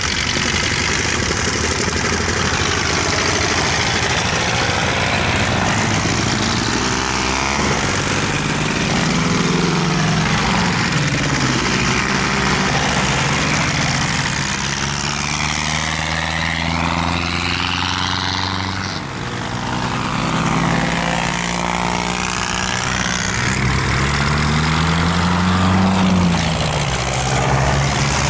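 Vintage tractor diesel engines running hard as tractors race past, the engine pitch rising and falling several times with throttle and speed.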